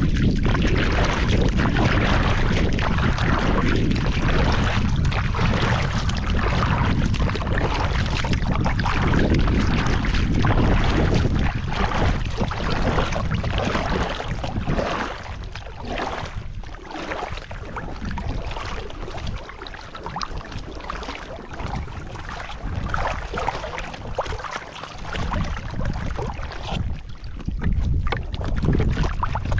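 Wind buffeting the microphone over rushing water, heavier at first and easing about halfway through.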